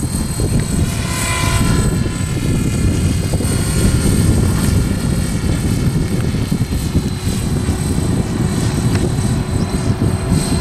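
Remote-control model helicopter in flight: steady rotor noise with a high whine held over it.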